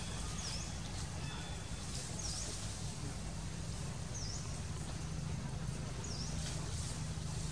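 A small bird repeating a short, high call that dips and rises again, about once every two seconds, over a steady low rumble.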